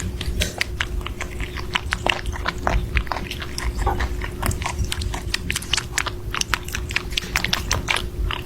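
A pet chewing and crunching, heard as many irregular sharp clicks, over a faint steady hum.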